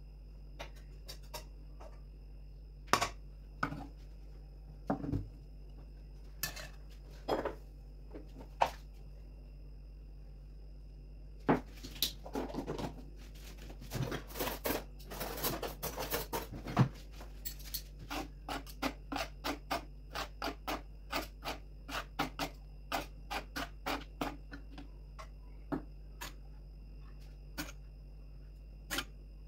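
Metal spoon scooping steamed couscous and clinking and scraping against an aluminium couscous steamer and a serving dish: scattered clicks, a busy stretch of scraping and clatter midway, then steady taps about twice a second.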